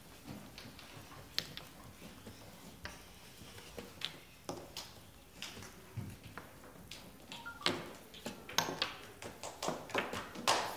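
Plastic chess pieces set down on a vinyl board and a digital chess clock's buttons slapped in turn, making a string of sharp taps and clicks during a fast blitz game. The taps come quicker and louder in the last few seconds.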